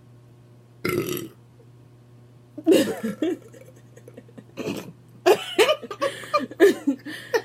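A person burping several times: a short burp about a second in, a longer one near three seconds, another near the middle, then a run of quick burps in the last two seconds.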